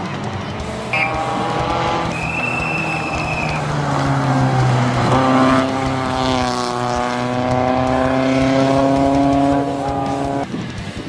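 Rally car engines held at high revs as the cars pass at speed, the engine note staying high and steady for several seconds before cutting off abruptly near the end. A brief high squeal comes about two seconds in.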